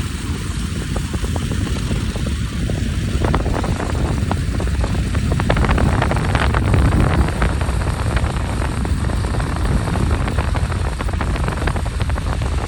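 A vehicle running, with a spell of crackling from about three to eight seconds in where it is loudest.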